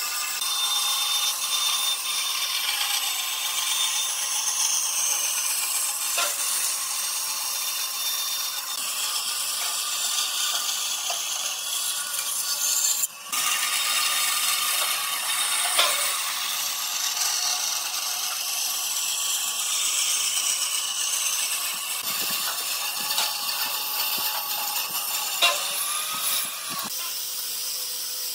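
Band saw cutting through a thick glued-up wooden blank along a curve, a steady hiss of blade through wood with a short break about halfway. Near the end it changes to the steady whine of an angle grinder with a sanding disc.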